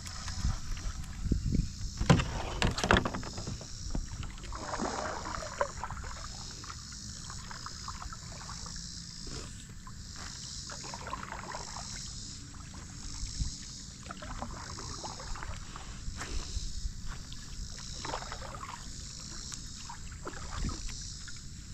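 Sounds aboard a small fishing boat: scattered knocks and clatter of gear in the boat, busiest about two to three seconds in, over a steady low rumble.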